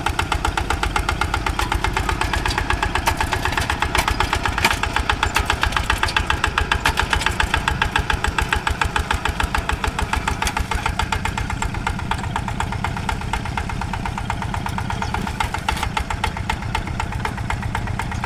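Two-wheel walking tractor's single-cylinder diesel engine running steadily with a rapid, even chugging beat while ploughing.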